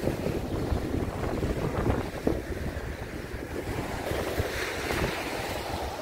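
Wind buffeting the microphone in uneven gusts, with sea surf washing on the shore behind it.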